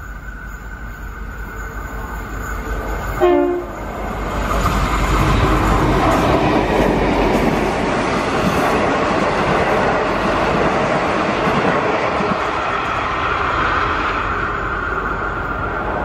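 A V/Line locomotive-hauled passenger train passing close by. There is a short horn blast about three seconds in. Then the carriages clatter and rumble past on the rails, easing off near the end as the last carriage goes by.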